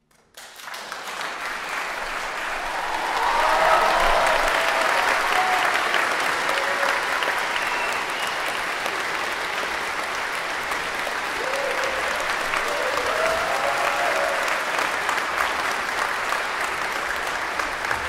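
Audience applause breaking out suddenly, swelling over the first few seconds and then continuing steadily, with a few voices calling out over the clapping.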